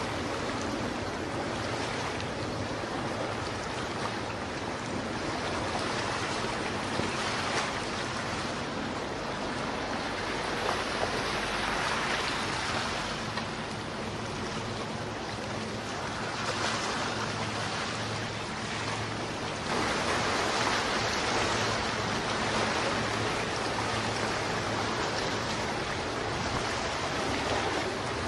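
Sea water rushing and washing past a large ship, with wind, a steady rush that swells now and then, over a faint low steady hum.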